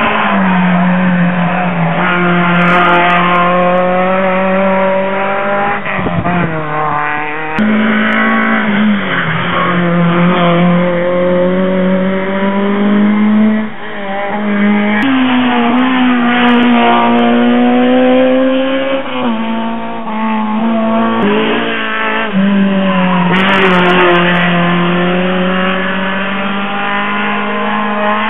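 Rally car engine running hard at high revs on a hill climb. Its pitch is held for a few seconds at a time, then steps abruptly as the car changes gear.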